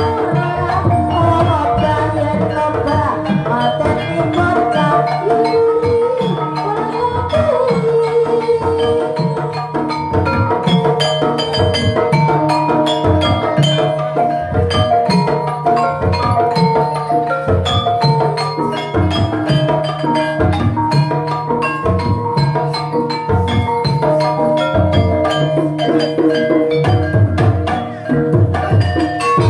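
Gamelan-style music for an ebeg (kuda lumping) horse dance: hand drums keep a steady repeating beat under struck keyed percussion playing a melody.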